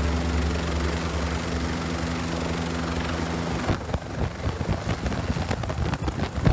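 Helicopter running: a steady drone with several held tones, which changes abruptly about three and a half seconds in to a rougher, choppier noise.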